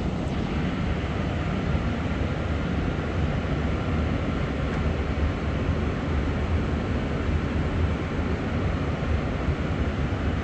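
A steady low rumble with hiss that holds at an even level throughout.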